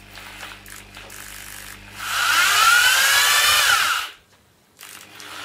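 Draper two-speed electric drill running: a low, steady hum, then about two seconds in it speeds up into a loud whine that rises and falls before cutting off about four seconds in. The owner takes this as the second gear now gripping, a sign that the selector washer is a bit too tall.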